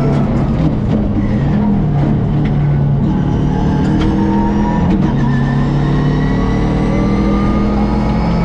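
Subaru Impreza WRX STI rally car's turbocharged flat-four engine under hard acceleration, its pitch climbing and then dropping back at each gear change, several times over.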